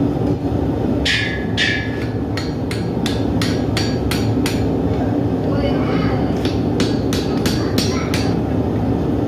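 Blacksmith's hand hammer striking hot steel on an anvil, about three blows a second in two runs with a short pause between, each blow ringing briefly. A steady low rumble runs underneath.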